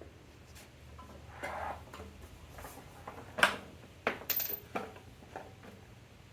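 Small metal clicks and knocks of parts and tools being handled. The loudest click comes about three and a half seconds in, followed by a quick cluster of clicks a little after four seconds.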